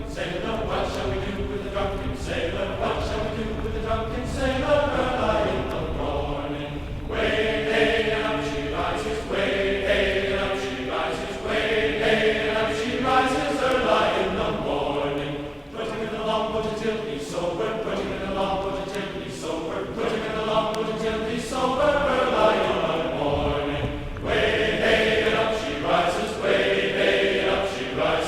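Background music built on chanted, choir-like singing voices holding and gliding between sung notes.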